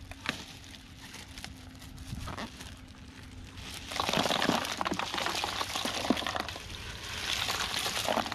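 Ice cubes poured from a plastic bag onto fish in a plastic cooler, clattering and rattling as they fall, with the plastic bag crinkling. The handling is quieter at first, and the steady pour of ice starts about four seconds in.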